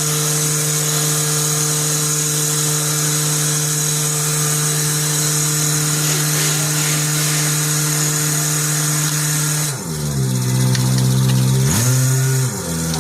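Power grinder running steadily with a high-pitched whine, grinding corrosion off a wheel hub. Near the end its pitch drops twice as it bogs down under load.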